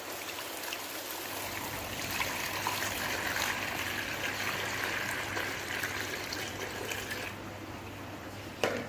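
Clean water pouring in a steady stream, fullest from about two to seven seconds in, then easing off. A single knock near the end.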